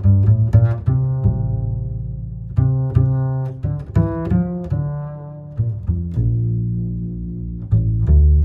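Background music carried by low, sustained notes, with sharp plucked attacks starting new notes every half second or so.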